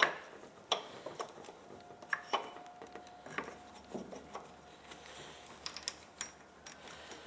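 Scattered metal clicks and light knocks, about a dozen at uneven intervals, from hand tools and parts being handled on an engine's cylinder head during reassembly.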